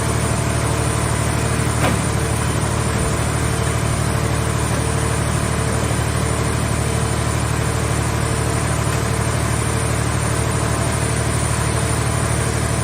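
Hydraulic scrap car-shell baler running with a steady machine hum, with one short click about two seconds in.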